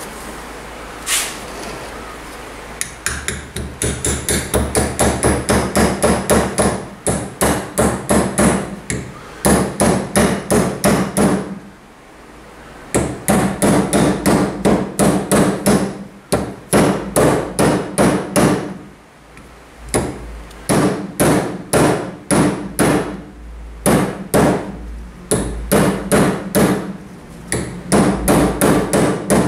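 A hammer tapping an oiled shaft seal into the hub of a moped's rear sprocket carrier to seat it. It gives runs of quick, sharp taps, a few a second, broken by short pauses.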